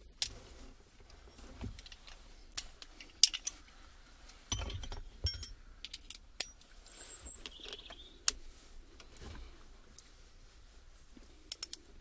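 Scattered metallic clicks and clinks of a socket wrench being fitted and worked on the gear-stick clamp bolt, with a quick run of three or four clicks near the end.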